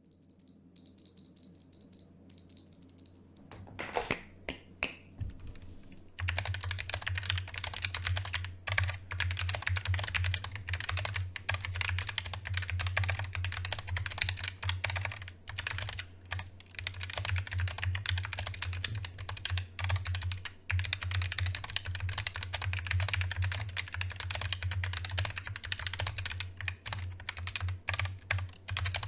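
Roccat Vulcan II Mini keyboard being typed on. A few scattered keystrokes come first, then fast, continuous typing starts about six seconds in and keeps going.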